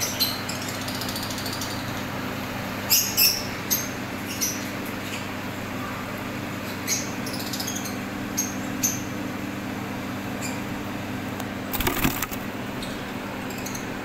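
Lovebirds giving short, high-pitched chirps every second or so over a steady low hum. Near the end there is a brief louder rustle.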